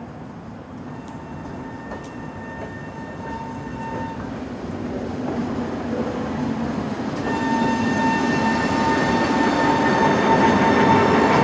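A tram approaching, growing steadily louder, with a steady high-pitched whine that strengthens over the last few seconds over the rumble of the wheels on the rails.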